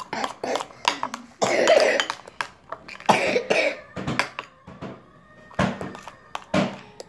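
A person coughing, with two loud coughing bouts about a second and a half and three seconds in, among small clicks and taps.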